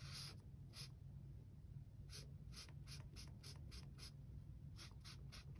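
Faint scratchy strokes of a Pilot Spotliter highlighter's felt tip rubbed back and forth across sketchbook paper to fill in a circle. The strokes come singly near the start, then quicken to several a second from about two seconds in.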